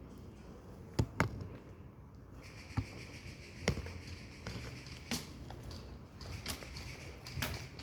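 Scattered sharp cracks of airsoft guns firing, single shots at irregular intervals, with a faint steady hiss joining about two seconds in.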